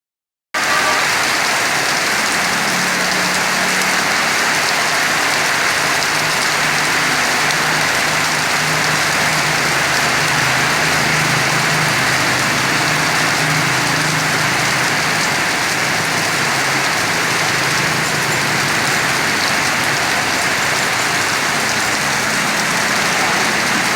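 Steady rain falling and pattering on surfaces, an even unbroken hiss. A faint low hum sits underneath it for much of the time, fading out about two-thirds of the way through.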